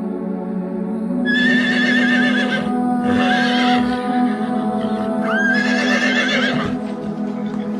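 A horse whinnying three times, each a long, quavering neigh, over steady background music.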